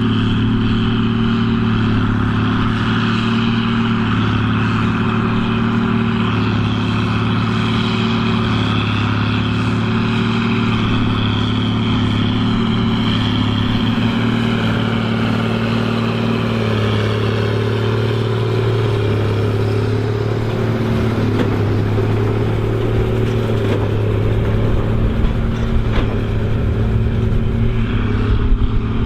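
Case 2294 tractor's diesel engine running steadily under load while pulling a big square baler. Its pitch holds even, and in the last few seconds a low rumble grows and the level turns uneven.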